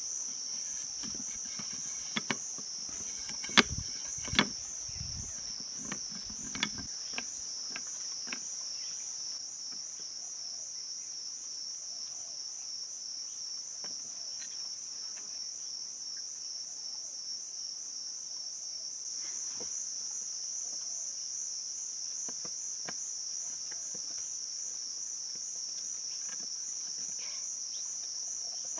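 Steady, high-pitched insect chorus with a slight pulse, of crickets or cicadas. In the first several seconds a handful of sharp knocks and taps come from bamboo pieces being handled and worked with a knife on a log, the loudest two close together.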